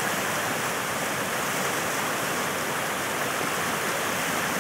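Floodwater pouring over the spillway of an overflowing reservoir and churning down in a turbulent cascade, a steady, even rush of water.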